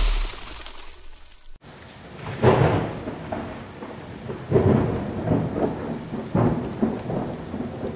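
A sharp hit at the very start, then after a sudden cut a steady rushing noise like rain, with three louder rumbling swells about two seconds apart, like thunder.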